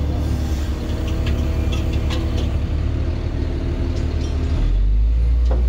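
KAMAZ 65117 truck's diesel engine running steadily, with a few light knocks early on. About four and a half seconds in, the engine note deepens and gets louder.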